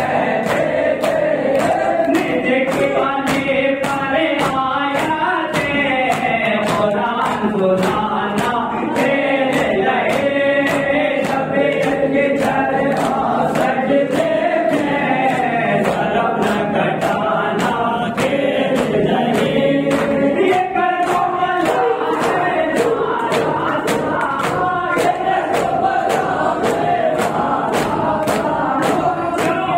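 A group of mourners chanting a Muharram nauha (lament) in unison, with matam: hands striking chests together in a steady beat of about two strikes a second.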